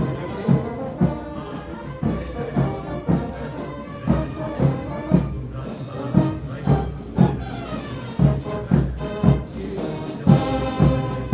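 Military brass band playing a march, sustained brass chords over a drum beating steadily about twice a second.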